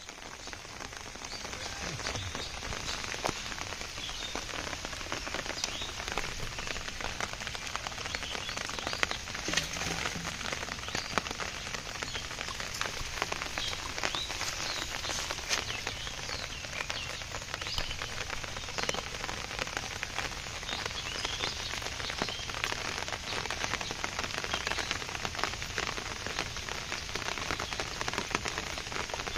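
Steady rain falling on river water: a dense, even patter of drops.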